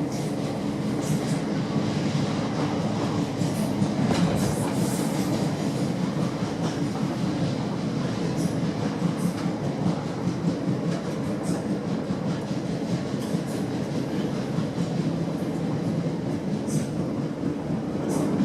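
Electric multiple unit train running along the line, a steady rumble of wheels and traction hum with scattered clicks of wheels over rail joints.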